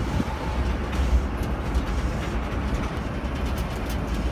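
Zocotren rubber-tyred tourist road train on the move, a steady low engine and road rumble heard from inside a passenger car.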